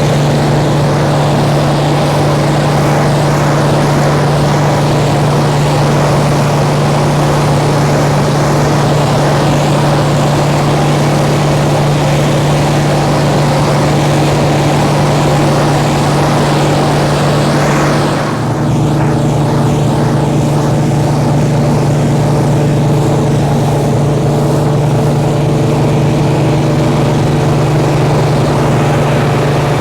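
A nearly 40-year-old combine harvester running steadily at work, with a strong low engine hum under a rushing mechanical noise. About eighteen seconds in, the rushing noise drops back and the engine's hum stands out more clearly.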